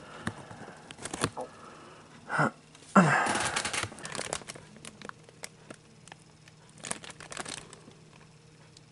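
Handling noises: scattered clicks and rustling, with a louder rustle lasting about a second starting about three seconds in and a shorter burst of clicks and rustling about seven seconds in.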